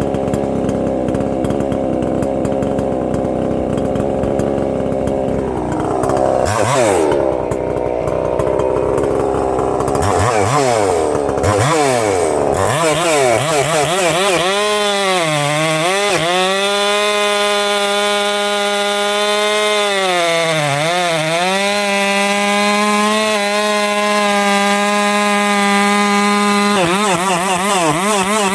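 Husqvarna 262XP two-stroke chainsaw revving up and down a few times, then held at full throttle cutting into big wood. Its pitch sags briefly twice as the chain takes the load.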